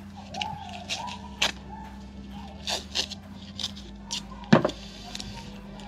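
Masking tape being pulled off the roll, torn and pressed down around the hub of a brake drum: a string of short crackling rips, with one louder knock about four and a half seconds in.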